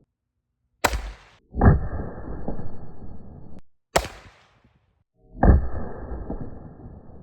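Two sharp 5.56 rifle shots about three seconds apart. Each is followed shortly after by a louder, duller boom that fades over a couple of seconds, with dead silence between the edited cuts.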